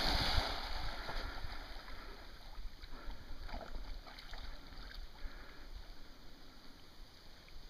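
A flat-coated retriever splashing into lake water, the loud splash dying away within the first half-second, then faint splashing and lapping as the dog swims out, over a low wind rumble on the microphone.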